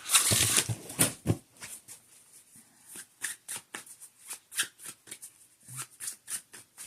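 A deck of oracle cards being shuffled by hand: a brief rush of card noise at the start, then irregular light flicks and taps of the cards.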